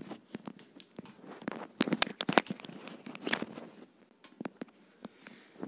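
Close rustling and crackling with sharp clicks, loudest in a cluster about two to three seconds in: handling noise picked up close to a wired earphone microphone as the wearer moves.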